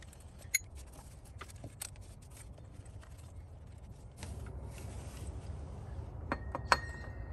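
Faint scattered metallic clicks and taps as 12 mm nuts are spun off the fan clutch studs by hand and the fan clutch is worked off the water pump pulley, with a brighter click near the end, over a low steady hum.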